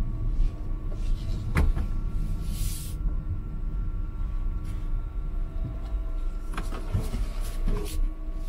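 Cabin noise of a Tesla Model Y, an electric car, rolling slowly through a parking lot: a steady low rumble with faint steady tones, a sharp click about a second and a half in and a short hiss just before three seconds.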